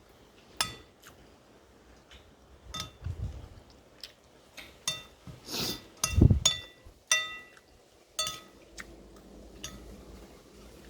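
Cutlery clinking and scraping against a dish while eating, a string of short ringing clinks that come quickest about five to seven seconds in, with a couple of dull low thuds, the louder one about six seconds in.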